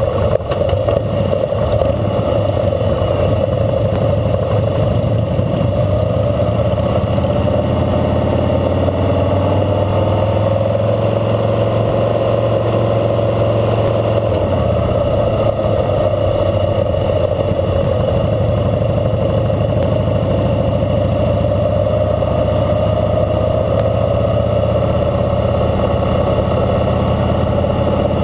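Harley-Davidson Fat Boy Lo's V-twin engine running steadily at a slow riding pace, heard from a camera mounted on the bike. The engine note dips a little about ten seconds in and then holds.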